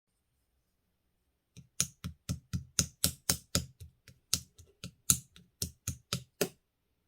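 Red translucent slime being worked by hand, giving a run of sharp clicking pops, about three or four a second. The clicks start about one and a half seconds in and stop shortly before the end.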